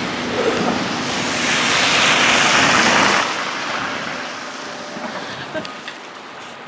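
Snowstorm wind gusting over the microphone, a rushing noise that swells for a couple of seconds, cuts off abruptly about three seconds in, then settles to a quieter hiss.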